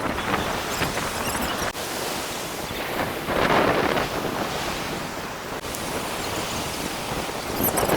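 Sea waves washing onto the shore, one swelling louder about three and a half seconds in and another at the end, with wind buffeting the microphone.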